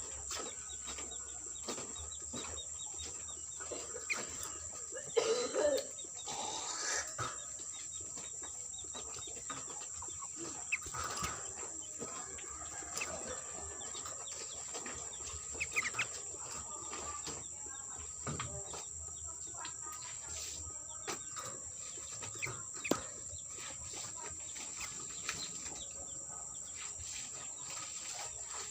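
Outdoor birds chirping and calling, short scattered calls with a few upward-sweeping chirps, over a steady high-pitched insect drone. A louder cluster of calls comes about five to seven seconds in.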